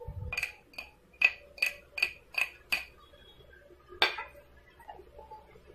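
Hard-anodised aluminium handi pot and its metal lid clinking together: seven light ringing taps about 0.4 s apart, then one more about four seconds in.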